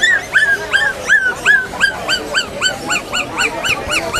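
A caged puppy yelping over and over: a rapid run of high-pitched yips, about four a second, coming a little faster near the end.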